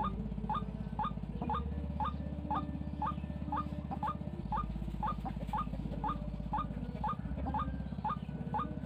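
White-breasted waterhen calling: short rising notes repeated about two and a half times a second in a steady run, over a low pulsing drone.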